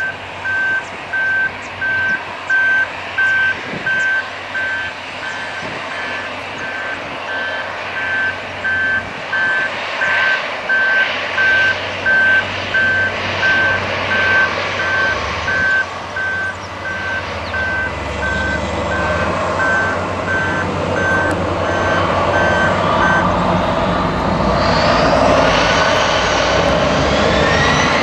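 Airliner jet engines idling under a steady high electronic beep that repeats a little more than once a second. The beeping stops a few seconds before the end, and the Airbus A320's CFM56 engines then spool up with a rising whine as takeoff thrust is set.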